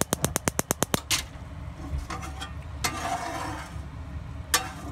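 Kitchen utensils at work: a quick run of about ten sharp clicks in the first second, then scattered knocks and a stretch of hissing noise.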